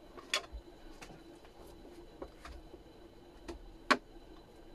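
Scattered sharp clicks and taps from hand tools and equipment being handled on a repair bench, with two louder clicks, one shortly after the start and the loudest near the end. A faint steady hum runs underneath.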